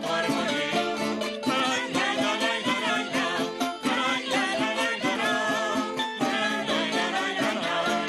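Traditional eastern Venezuelan folk music: plucked string instruments strumming and picking steadily while voices sing a wavering melody.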